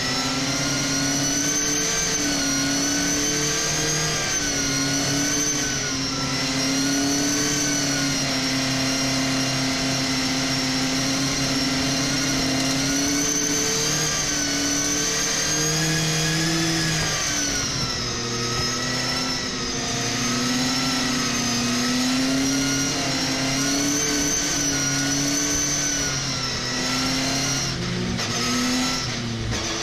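Racing pickup truck's engine heard from inside the cab at race speed, its note rising and falling as the driver accelerates, lifts and changes gear, with a deeper dip and climb about two thirds of the way through.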